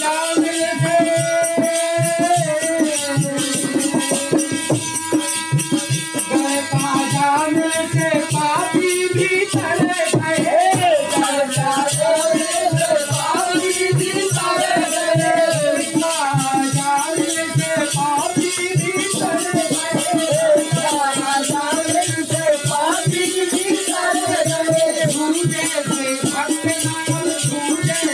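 Instrumental passage of a Bundeli folk bhajan: a wavering melody over a fast, steady drum beat, with continuous shaken rattle-like percussion.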